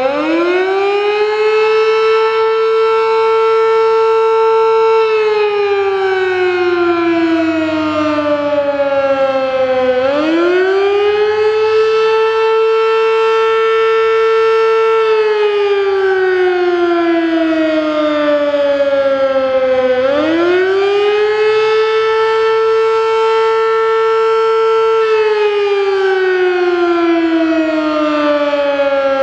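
Sterling Model M mechanical outdoor warning siren with 8/16 ports sounding its attack signal for a fire test, two tones an octave apart. It winds up quickly about every ten seconds, holds its top pitch for about four seconds, then slides down for about five before winding up again.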